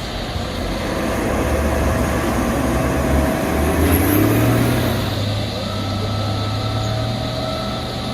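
Engine of a heavy logging machine running steadily, its low drone shifting slightly in pitch about halfway through.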